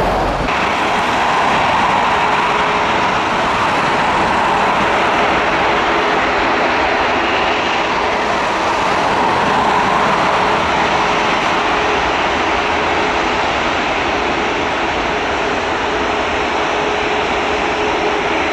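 Airliner turbofan engines running on the airfield, a loud, steady rush of jet noise. The low rumble cuts away abruptly just after the start, and a faint steady whine joins from about ten seconds in.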